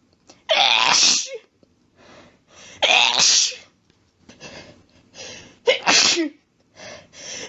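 A person sneezing repeatedly: three loud sneezes about two and a half seconds apart, with quieter sounds between them, and a fourth sneeze starting at the very end.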